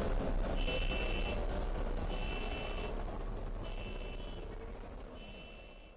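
Dark ambient horror sound design: a dense low rumbling drone with a high electronic beep repeating about every one and a half seconds, four beeps in all, the whole fading out near the end.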